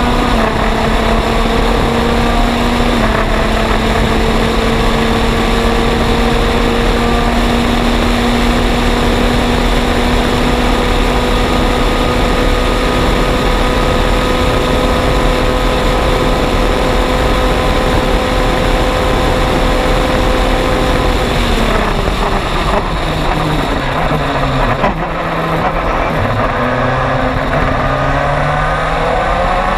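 In-car sound of an MG Lola EX257 sports prototype's turbocharged 2.0-litre four-cylinder engine at racing speed, with heavy wind rush. There is a gear change about three seconds in, then the engine holds steady high revs for a long stretch. About twenty seconds in the driver lifts and the revs drop and wander lower, then climb again right at the end.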